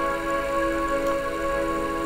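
Instrumental background music of long, held chords, the soundtrack of an aerial city film.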